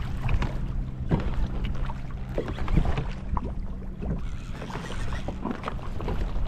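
Small waves lapping and slapping irregularly against a kayak hull, with wind rumbling on the microphone. A steady low hum runs underneath.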